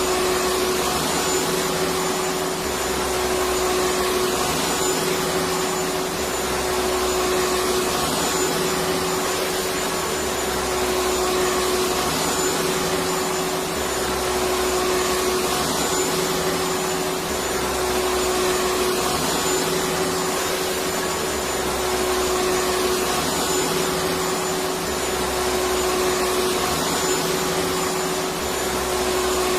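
Electric vacuum cleaner running steadily: an even rush of air over a constant motor hum, with a low rumble that swells and fades every few seconds.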